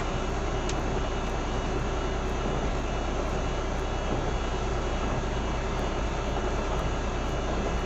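Steady drone of a tractor-trailer's engine and road noise heard inside the cab while driving, with a strong low hum.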